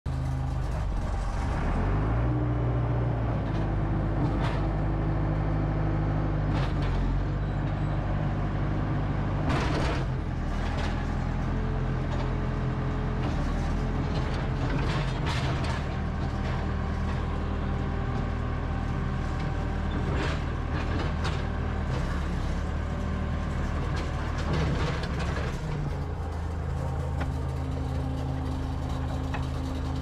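A JCB 214SMC loader backhoe's 92 hp diesel engine running while the machine drives and works its loader. The engine note steps up and down a few times, with occasional knocks and clanks from the machine.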